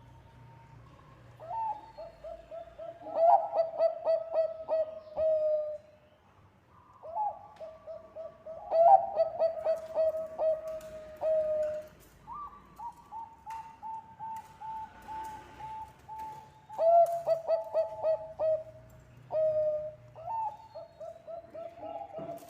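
Zebra dove (Bangkok perkutut) singing its rolling coo song: about four phrases, each a run of quick stuttering notes flowing into longer held coos, with short pauses between phrases.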